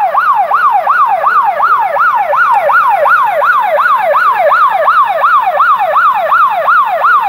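Community alarm siren sounding loudly, a fast electronic wail whose pitch sweeps up and down about three times a second: the robbery alarm signal.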